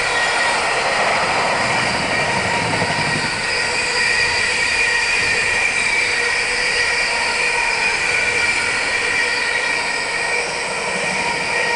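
Container wagons of a freight train rolling steadily past, with several held ringing tones from the wheels over the rumble. It eases slightly near the end as the last flat wagons go by.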